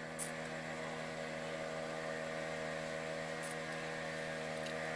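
A small engine running steadily, giving an even, unchanging hum. Two faint high ticks come through, one just after the start and one in the middle.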